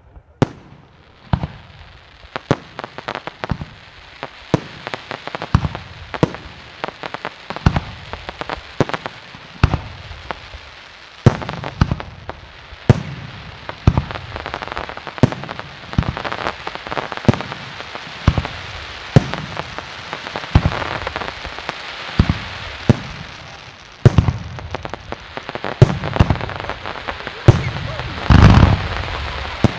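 Aerial firework shells bursting in quick succession, sharp bangs about once a second over a steady hiss. A louder cluster of bangs comes near the end.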